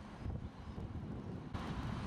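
Wind buffeting the microphone as a low rumble, with a steady hiss that jumps up suddenly about one and a half seconds in.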